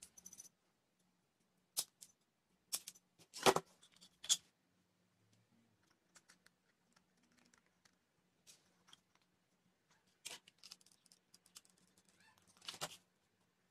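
Tin-can lids and a matchbox-and-skewer toy cart being handled on a tabletop: scattered sharp clicks and knocks, the loudest about three and a half seconds in, with a short clatter near the end.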